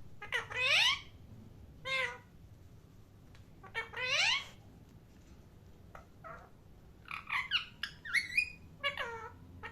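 A pet parrot calling in harsh squawks, each call bending in pitch. There are two long squawks about three seconds apart with a shorter one between, then a quick run of chirps in the last few seconds.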